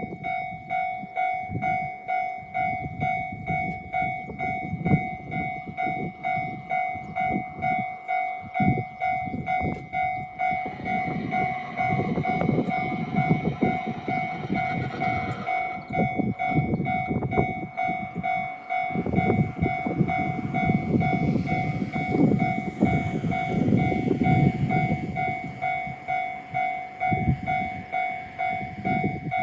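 Japanese level-crossing alarm sounding its repeated electronic ding. Meanwhile an E657 series electric express train passes over the crossing: a rumble of wheels on rail builds about ten seconds in and is loudest in the second half.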